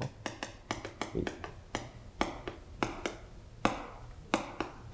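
Chalk writing on a chalkboard: a run of short, irregular taps and brief scratches as the chalk strikes and drags across the board.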